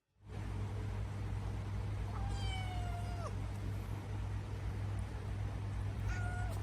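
A cat meowing twice, one long drawn-out meow about two seconds in that drops in pitch at its end, and a short meow near the end, over a steady low hum.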